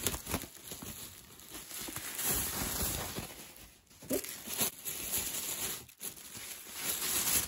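Bubble wrap and tissue-paper packaging crinkling and rustling as a wrapped item is handled and lifted out of a cardboard box, with a few light clicks and taps.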